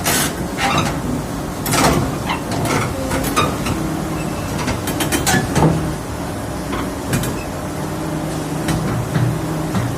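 Heavy excavator's diesel engine running steadily while the machine is being unloaded, with a string of sharp metallic clanks and knocks over it.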